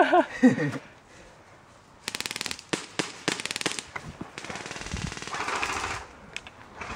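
Airsoft electric guns (AEGs) firing on full auto: several quick bursts of rapid clicking shots, starting about two seconds in.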